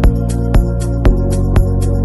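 Background electronic music with a steady beat, a kick drum about twice a second over sustained bass notes.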